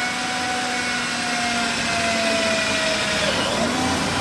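Electric drill running steadily as it bores the first mounting hole through the Tour-pak wall, a whining motor tone over a dense grinding hiss. The whine sags slightly in pitch about three seconds in.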